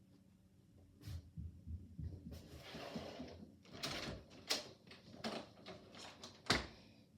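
A door opening and someone coming back into the room: an irregular string of knocks, clicks and rustling that starts about a second in, with a few sharper knocks near the end.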